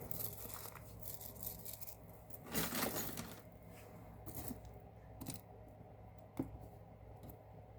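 Faint handling of small jewelry pieces and packaging: a rustle about two and a half seconds in, then a couple of light clicks.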